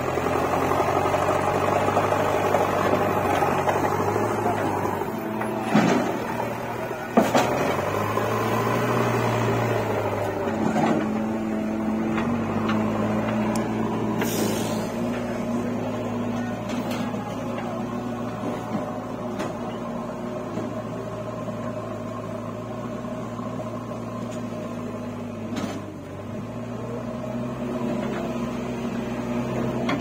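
JCB 3DX Eco Xpert backhoe loader's diesel engine running steadily as the machine moves about. The engine note shifts up and down about nine to eleven seconds in. A couple of sharp knocks come about six and seven seconds in.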